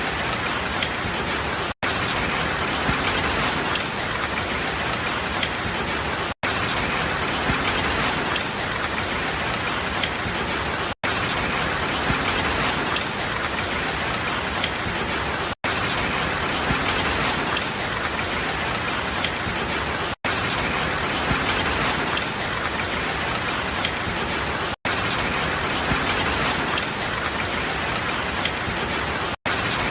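Steady rain falling on a surface, an even dense hiss of drops. The sound cuts out for a split second about every four and a half seconds, the seam of a short looped recording.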